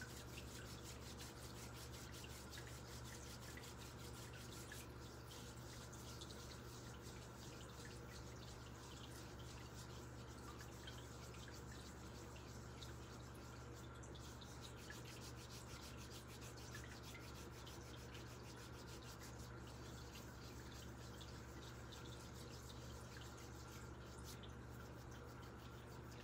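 Faint, steady sound of a tap running into a sink while soapy hands are rubbed together during handwashing, over a low hum.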